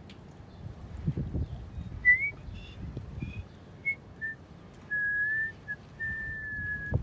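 Someone whistling a tune: a few short notes starting about two seconds in, then two longer held notes near the end. Wind rumbles on the microphone underneath.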